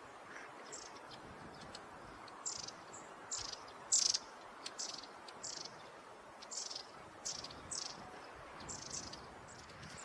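Hokkaido long-tailed tit (shima-enaga, Aegithalos caudatus japonicus) giving thin, high-pitched calls, about a dozen short notes spaced irregularly, the loudest about four seconds in.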